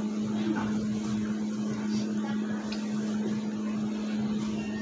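Steady mechanical hum held at one low pitch, with a faint hiss behind it.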